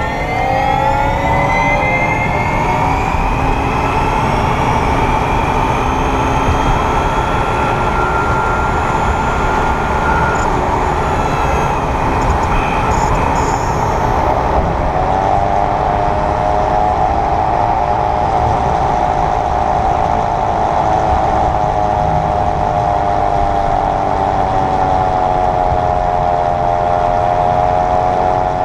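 2022 Kia EV6 front drive unit whirring in Eco mode: several whining tones that rise with speed at the start, hold, then return about halfway through and drift up and down, over steady road rumble. The owner hears this mechanical buzz around 28–30 mph and finds it goes away once i-Pedal engages the front motor.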